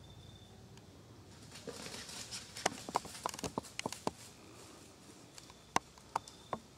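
Dry fallen leaves rustling and crunching, with a quick run of sharp crackles a couple of seconds in and a few more near the end.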